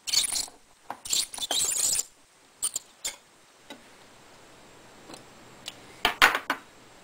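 Manual hand-crank can opener cutting around the lid of a can of coconut milk, in short high metallic grinding bursts over the first two seconds, then a couple of clicks. A few sharp clicks come near the end.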